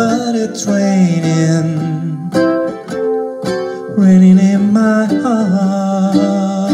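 Ukulele strummed in an even rhythm while a man's voice carries the melody in long wordless held notes.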